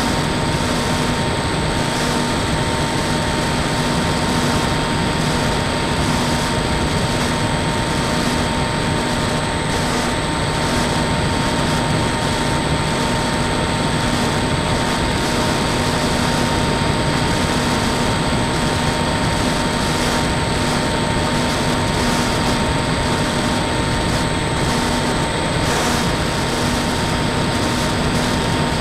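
Steady wind rush and the hum of an RC foam plane's electric pusher motor and propeller, picked up by a camera on board in flight.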